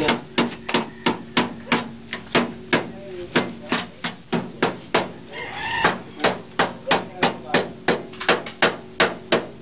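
Hand hammer striking the sheet steel of a rusted car floor pan in a steady rhythm, about three blows a second. About five seconds in, a drawn-out rising call sounds in the background.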